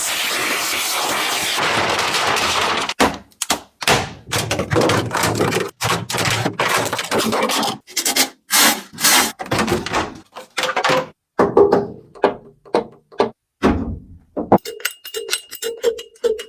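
Bodywork tools working on car sheet metal: a steady hiss for about three seconds that cuts off abruptly, then a stop-start run of short knocks and bursts of noise, some with a metallic ring.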